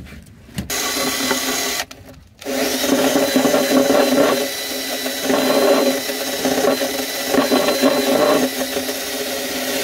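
Power drill spinning in two runs, a short one and then a steady one of about seven seconds, on the rusted bolts of the fuel-pump holder bracket. The bolts won't come out because the thread inside is stripped.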